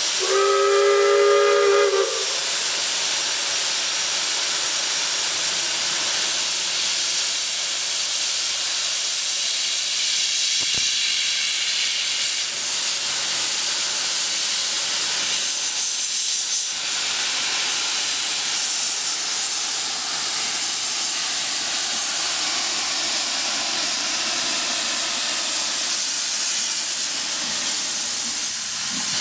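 Steam locomotive whistle, a single blast of about two seconds at the start, then a continuous loud hiss of steam from the open cylinder drain cocks of Bagnall saddle tank No.401 'Vulcan' as it starts away, clearing condensed water from its cylinders.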